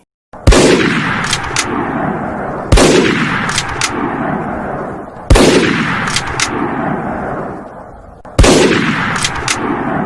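Four loud gunshots spaced a couple of seconds apart, each trailing off in a long echoing tail, with two or three small sharp clicks after each shot.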